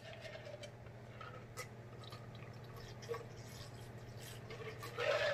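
A person drinking from a large jug, close to the microphone: faint gulps and swallows over a low steady hum, with a brief louder sound near the end.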